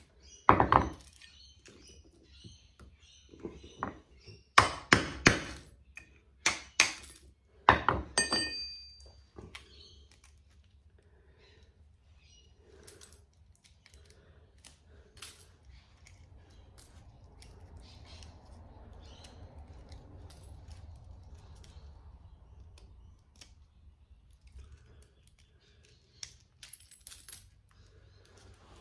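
A hammer strikes a cold chisel set on a steel light-ballast casing resting on bricks, knocking the core out of it. There are about six sharp metallic blows in the first eight seconds, the last one ringing briefly. After that come faint clicks and knocks as the loosened pieces are handled.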